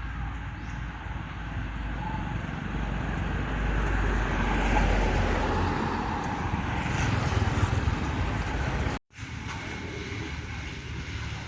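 Motor vehicle rumble, like passing road traffic, swelling over the first few seconds. It cuts out abruptly about nine seconds in, then comes back quieter.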